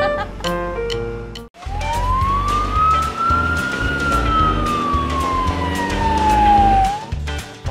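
Cartoon music, then after a brief break a single ambulance siren wail that rises for about two seconds and falls slowly for about three, over background music with a steady beat.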